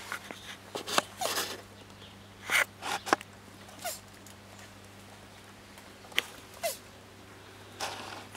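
Male tortoise making wheezy, cold-like mating calls while mounting a female: short separate calls every second or so, some ending in a brief falling squeak.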